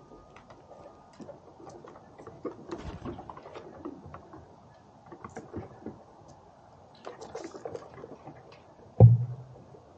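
Light scattered clicks and patter of a black squirrel and a chipmunk moving over wooden deck boards, with one sharp low thump about nine seconds in.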